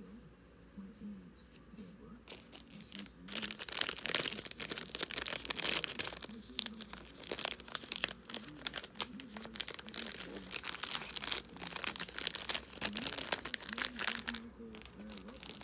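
Thin clear plastic bag crinkling and rustling in the hands while a small folded cloth garment is worked inside it. After about three seconds of soft handling, the crinkling starts and runs on in dense, quick crackles until shortly before the end.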